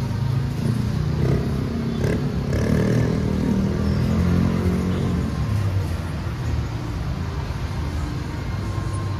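Street traffic, with a motor vehicle's engine growing louder and passing close by in the first half, then a steadier background traffic rumble.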